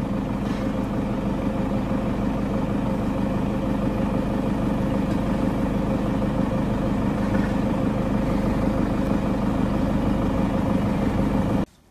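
Motor vehicle engine idling steadily, an even hum with no change in pitch, cutting off abruptly near the end.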